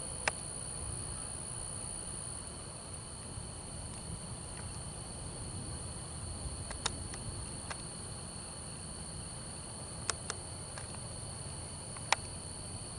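Steady chorus of night insects, a continuous high shrill trilling, over a low rumble, with a few sharp clicks scattered through.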